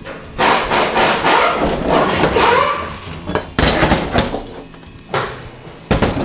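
Ford 5R110W transmission case being turned around on a workbench: metal scraping and clanking, with a couple of sharp knocks near the end.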